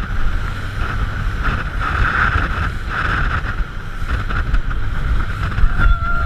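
Rigid inflatable speedboat running fast over the water: the engine's steady drone under heavy wind buffeting on the microphone, with spray hitting the boat.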